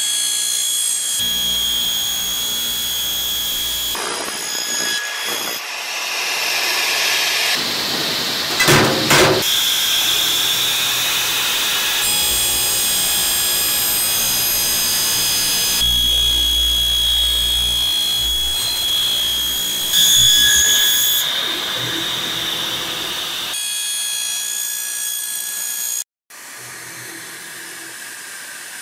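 Milling machine's slitting-saw cutter cutting into a steel tube: a steady high-pitched metal-cutting whine. The tone and loudness change abruptly several times, and it goes quieter after a brief cut-out near the end.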